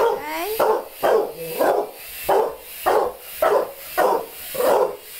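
An irate Staffordshire bull terrier barking over and over at a small toy quadcopter flying in the room, about ten barks at just under two a second. The first bark is drawn out with a yelping rise and fall in pitch.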